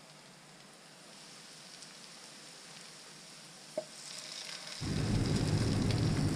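Raw chicken pieces dropped into a hot frying pan of sautéed garlic, onion and ginger. A short click as the first piece lands, then oil sizzling that swells and turns loud about two-thirds of the way through as more chicken goes in.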